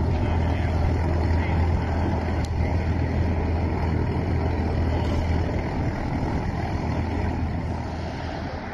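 Cessna 182T's six-cylinder piston engine and propeller running steadily at low power while taxiing, a loud drone with a deep hum. It fades away near the end as the plane comes to a stop.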